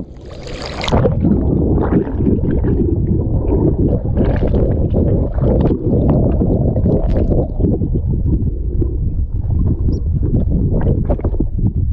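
A splash as the camera goes under the sea surface, then the muffled underwater rumble and gurgling of a swimmer moving through the water, with scattered small clicks and bubble noises.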